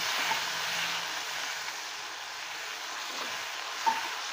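Chopped green chillies in hot oil sizzling and bubbling after water has been added, stirred with a silicone spatula. The hiss is steady and eases a little, with a short click about four seconds in.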